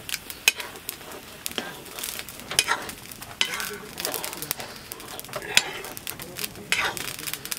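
A metal ladle scraping and stirring curry in a metal wok, with a frying sizzle underneath. The scrapes come at uneven intervals, roughly once a second.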